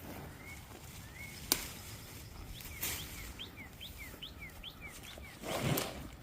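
A bird singing a quick run of about seven paired notes, each a short up-sweep followed by a falling note, over a faint outdoor background. There is a sharp click about a second and a half in, and a brief noisy rustle near the end.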